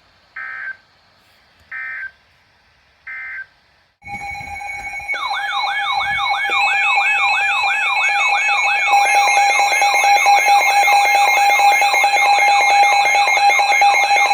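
Weather alert radio: three short buzzy data bursts, the end-of-message signal closing the previous warning. Then, from about four seconds in, the Midland WR-100 weather radio's loud alert sounds: a steady tone with a rising siren sweep repeating two to three times a second, signalling a new warning.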